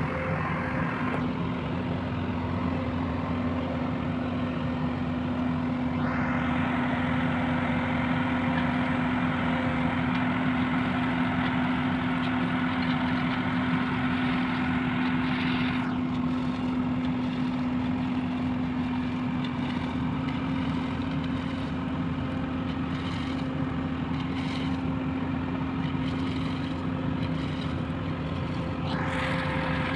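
A heavy construction vehicle's engine running steadily, with an even low hum.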